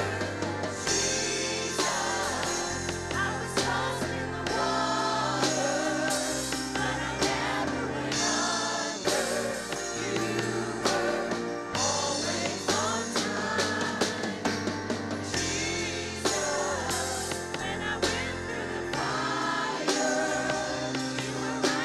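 Gospel worship music: a praise team singing with a band of bass and drums.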